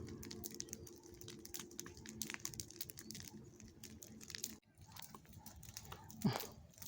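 Bonfire of dry grass and small branches crackling, with many sharp little pops and snaps over a faint steady hum. A short falling cry, likely from an animal, sounds near the end.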